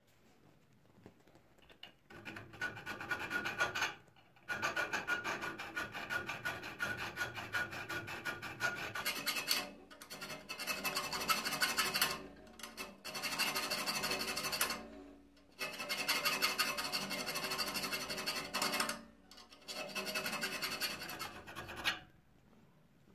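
Hand file rasping on the steel serrated jaw of lasting pincers in quick back-and-forth strokes. The filing comes in runs of a few seconds with brief pauses, starting about two seconds in.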